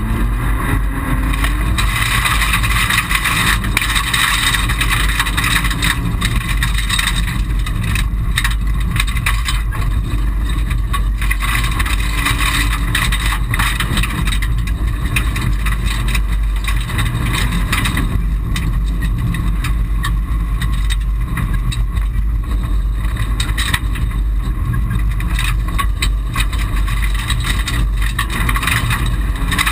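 Mitsubishi Colt rally car at full stage pace, its engine working hard under steady tyre and road noise, heard loud from inside the stripped, roll-caged cabin.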